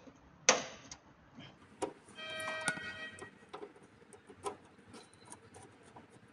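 Small clicks, taps and scrapes from a screwdriver working the solar-input cable terminal of a hybrid inverter as a cable is fitted. A brief ringing tone about two seconds in lasts about a second.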